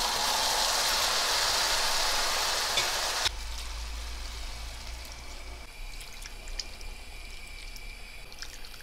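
Hot chicken broth poured from a glass into a pan of toasted rice, hissing and sizzling loudly as it hits the hot pan. The sizzle cuts off suddenly about three seconds in, leaving quieter liquid sounds with a few faint clicks.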